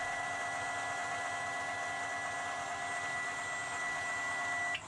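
ME1616 electric boat motor, energized by its Sevcon Gen4 controller, giving a steady high whine that cuts off suddenly near the end while the throttle does not respond. This is the sign of an encoder fault: the blue and white encoder wires between motor and controller were swapped.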